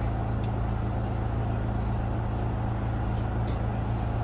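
Steady low mechanical hum, with a few faint soft taps and scuffs.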